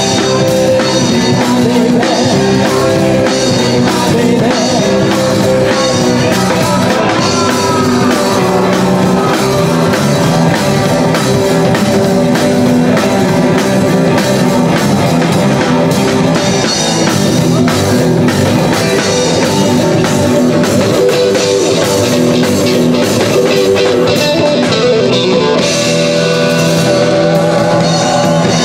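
Live rock'n'roll band playing loud: electric guitar, upright double bass and drum kit.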